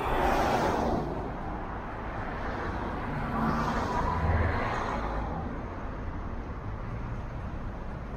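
Road noise of a car driving in city traffic: a steady low rumble and tyre hiss, with a louder rush of passing traffic at the start and another about halfway through.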